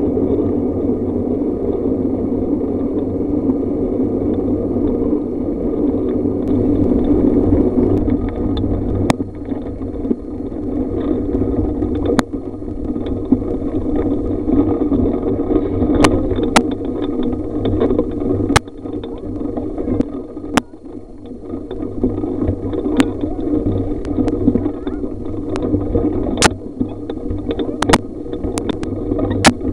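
Wind and road noise on a camera mounted on a moving bike with a Weehoo trailer bike, with sharp knocks and rattles from the mount over bumps, more frequent in the second half.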